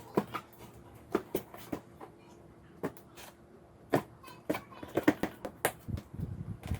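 Handling noise: irregular clicks and light knocks, several a second, over a faint steady hum.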